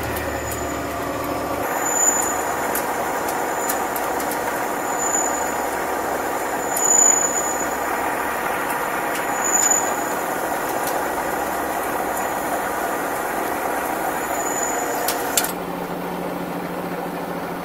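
Metal lathe running and cutting a steel shaft: a steady machine drone with several even tones. About fifteen seconds in it changes to a quieter, lower hum.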